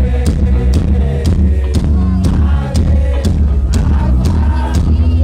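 Band music playing loud, with a steady drum beat over a strong bass line and a melody on top.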